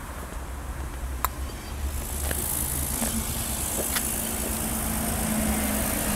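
A motor vehicle's engine running steadily. It grows a little louder about two seconds in, and a few light clicks sound over it.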